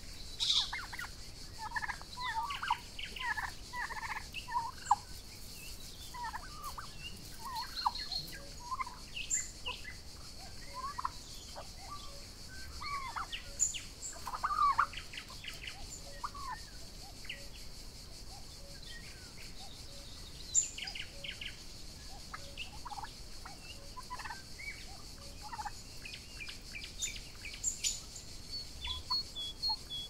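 Young Royal Palm and Broad Breasted White turkeys calling while foraging: many short calls, thick in the first half and sparser later, over a steady high hiss.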